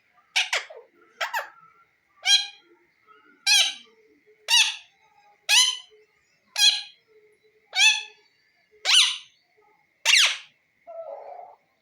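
Parrot giving a string of short, loud calls, about one a second, each a quick sweep in pitch.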